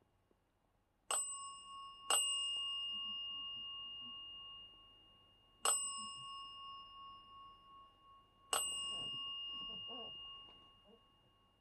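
A bell dings four times: two strikes a second apart, then two more spaced about three seconds apart. Each ring hangs on and fades slowly.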